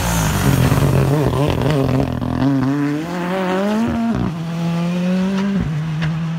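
Ford Fiesta rally car's turbocharged engine revving hard as it passes and pulls away. Its pitch wavers quickly for the first couple of seconds, then climbs, with sharp drops at gear changes about four and five and a half seconds in.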